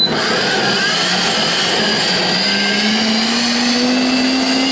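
High-speed countertop blender kicking in abruptly and running at full power, mixing a thick oat pancake batter. Its motor hum rises slowly in pitch as it comes up to speed.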